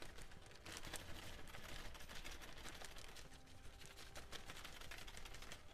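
Cayenne pepper being shaken from a spice bottle into a plastic freezer bag of raw chicken drumsticks: faint, quick, irregular ticking and rustling as the seasoning patters onto the bag and the bottle is shaken.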